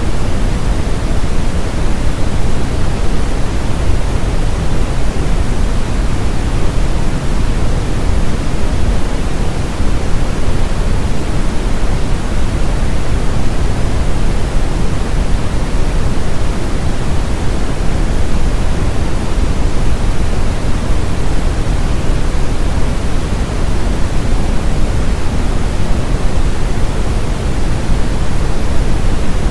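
Brown noise: a steady, deep, even rumbling hiss with most of its weight in the low end, unchanging throughout, of the kind used to mask tinnitus.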